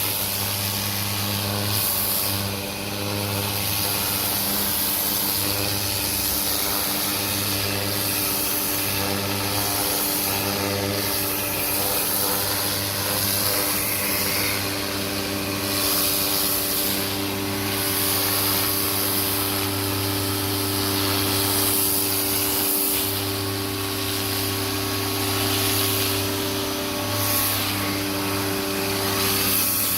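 Greenworks 1600 psi electric pressure washer running: the motor and pump hum, with the high hiss of water from the turbo nozzle hitting siding. The hum cuts out and restarts every few seconds, and the spray hiss swells and fades as it moves.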